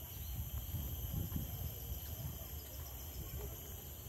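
Wetland ambience: a steady high-pitched drone of insects, under a low rumble of wind on the microphone.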